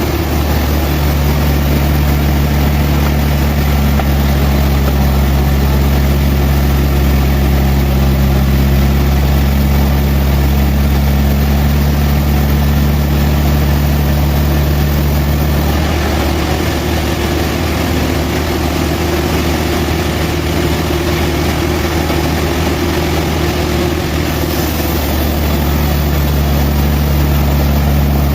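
Sawmill engine running steadily with a continuous hum. About sixteen seconds in its note shifts for several seconds, then returns near the end.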